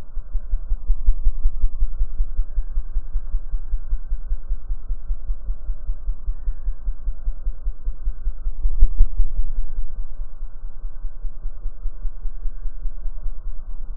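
Hummingbird wingbeats slowed to one-tenth speed, a deep rhythmic throbbing hum, a little louder about nine seconds in.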